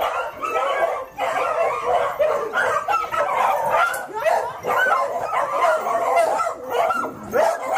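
A pack of dogs, beagles among them, barking and yipping all at once, many calls overlapping without a break.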